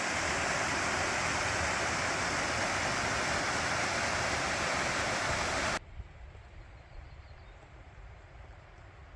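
Rushing water of a mountain stream or cascade, a loud steady rush that stops abruptly about six seconds in, leaving only a faint low rumble.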